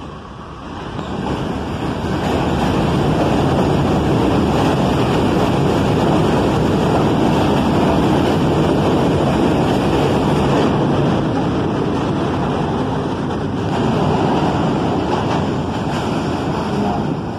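An R68A subway train running along an elevated steel structure, with a loud rumble of wheels on rails. It builds over the first two seconds, holds steady, and eases off slightly from about two-thirds of the way in.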